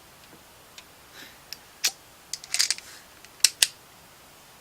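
Scattered sharp clicks and light knocks of a screwdriver and plastic PC fan parts being handled, with a short cluster of clatter in the middle and two sharp clicks about three and a half seconds in.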